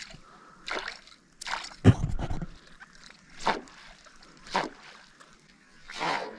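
A series of short water splashes and sloshes at a kayak, roughly one a second. The loudest comes about two seconds in and has a dull thud in it.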